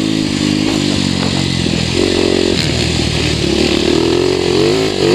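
TM 300 Fi four-stroke enduro motorcycle engine under way, heard from on the bike: the revs waver and drop off about two seconds in, then climb steadily again toward the end.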